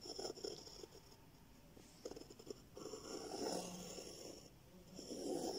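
Faint, heavy nasal breathing close to the microphone: a few breaths, each swelling and fading, with short pauses between them.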